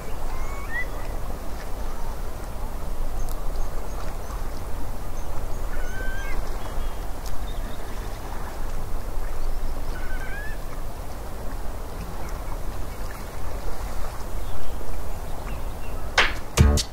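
Outdoor field ambience with a steady low rumble of wind on the microphone and a few short, upward-gliding bird calls. Near the end, band music starts with a steady beat.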